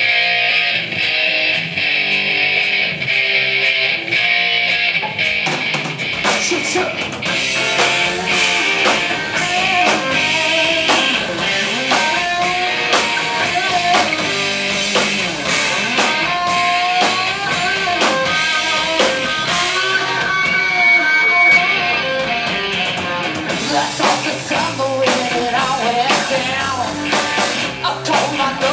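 Live rock band: electric guitars play alone at first, the drum kit comes in about five seconds in, and a woman's voice sings over the full band for the rest of the song section.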